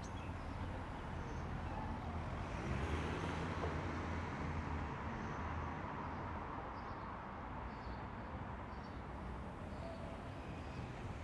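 Steady low background noise that swells slightly around three seconds in, with a few faint short high tones now and then.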